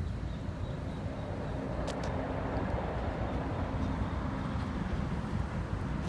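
Road traffic: a motor vehicle running past, its engine and tyre noise a steady rumble that swells a little around the middle.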